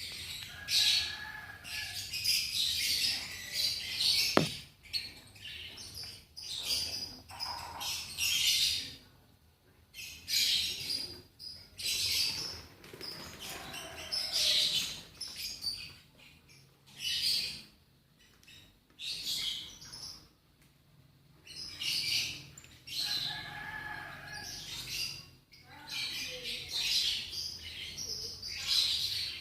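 Lovebirds chirping in shrill bursts of about a second each, again and again, with short pauses between.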